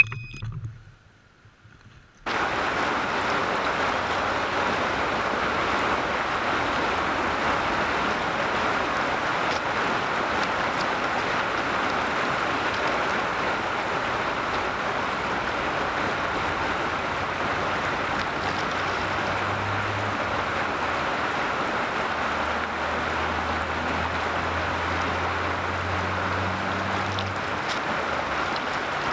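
Steady rush of flowing river water, cutting in suddenly about two seconds in after a short near-silent gap.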